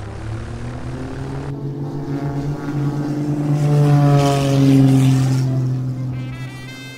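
Propeller biplane engine running, a cartoon sound effect. It grows louder to a peak about four to five seconds in as the plane passes, then fades.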